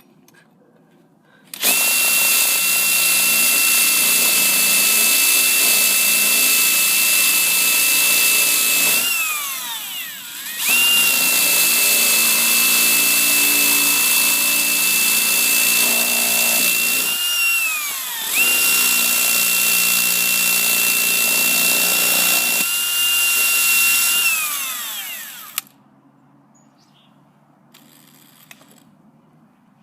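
Electric drill boring into a deadbolt lock in three long runs, each a steady high whine that winds down in falling pitch as the trigger is released. The bit is barely denting the lock.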